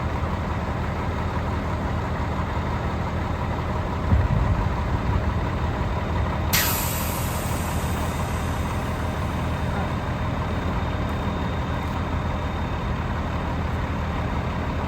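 Heavy truck or equipment engine idling steadily, its low hum briefly swelling about four seconds in. About six and a half seconds in comes a sudden sharp hiss of compressed air, an air-brake release, that fades out over the next couple of seconds.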